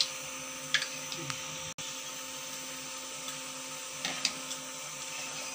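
Poori deep-frying in hot oil in a kadai: a steady sizzle with a steady hum underneath, and a few light clicks of the slotted ladle against the puri and pan, near the start and about four seconds in.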